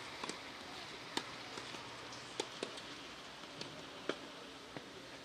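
Tennis ball knocks on an outdoor clay court: a few short, sharp knocks at irregular intervals, the strongest about a second in, near the middle and a little before the end, over a faint steady hiss.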